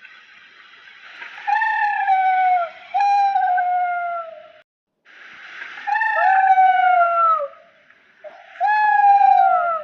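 Baby spinosaurus creature sound effect: four high, whistly calls about a second long each, every one sliding down in pitch, over a steady hiss. The audio cuts out briefly just before halfway.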